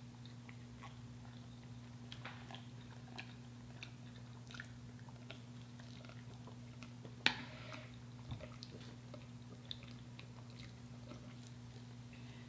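Faint chewing and biting of crispy fried chicken, with small crunches and wet mouth clicks, and one sharper crunch about seven seconds in, over a steady low hum.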